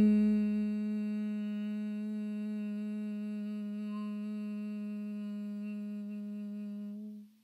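A woman's long, steady hum on a single low note, sustained on the exhale as in bee breath (bhramari pranayama). It softens within the first second, holds, then stops abruptly just before the end.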